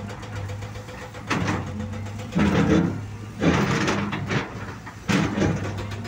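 Diesel engine of a Caterpillar hydraulic excavator running with a steady low hum. It is broken by several louder surges of a second or less as the machine works under load.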